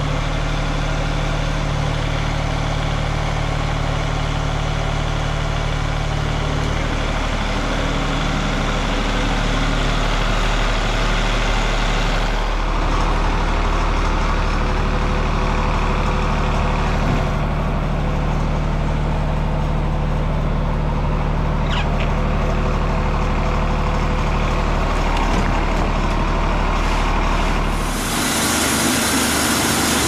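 Wood-Mizer band sawmill running under power, its engine holding a steady pitch while the band blade saws through a black cherry log. About two seconds before the end the sound changes abruptly, the deep low note dropping away.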